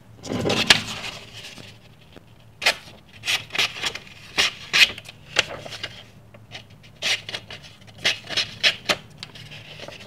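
Small pen blade of an old Kutmaster pocket knife slicing through a sheet of paper to test its fresh edge. The paper rustles as it is handled in the first second, then comes a string of short slicing strokes from about two and a half seconds in.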